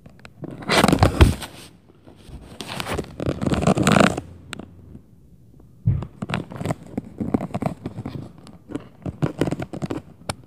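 Loud scraping and rustling in two long bursts, then a run of sharp knocks and scrapes, the first of them a heavy thud about six seconds in.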